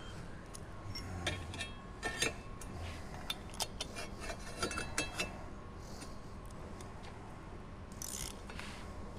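Small metal clicks and clinks of hand tools working on the pump's impeller bolt, a few a second for about five seconds, then a short scrape near the end.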